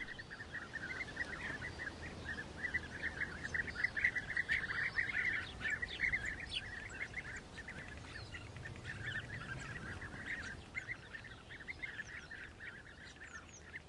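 European bee-eaters calling at their breeding bank: many short, rolling, trilled calls overlapping in a continuous chatter, with a few higher chirps above. The chatter thins out over the last few seconds.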